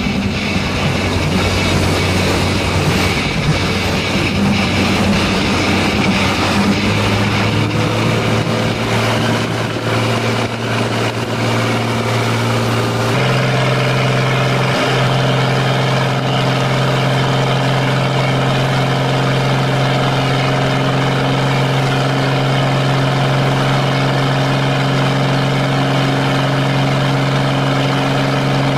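Inboard engine of an antique motorboat running steadily. Its pitch steps up a little about a quarter of the way in, then jumps higher about halfway and holds there.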